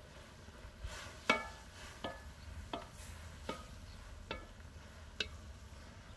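Wooden spatula stirring rose petals in a large metal cauldron, knocking against the side of the pot six times, about every three-quarters of a second, each knock with a short metallic ring. The loudest knock comes about a second in.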